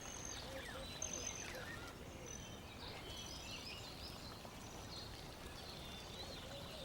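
Faint bird chirps and short whistles scattered over a low steady hiss, like a quiet nature ambience.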